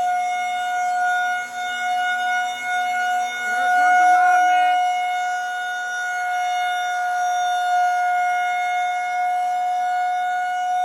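Federal Signal 2001-130 rotating outdoor warning siren sounding a steady tone during a siren test. Its pitch holds constant while its loudness slowly swells and fades.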